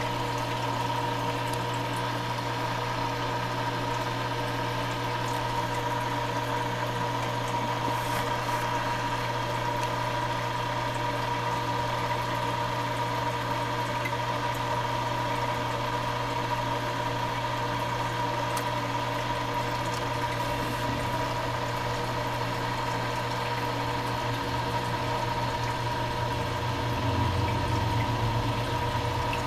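Saltwater aquarium sump running: the steady hum of a pump with water moving through it. It gets a little louder near the end.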